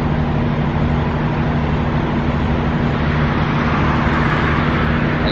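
Steady road traffic noise from cars passing on the street, with a constant low hum underneath.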